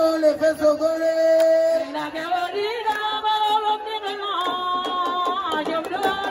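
A woman singing long held notes with ornamented glides into a microphone, amplified through a PA loudspeaker.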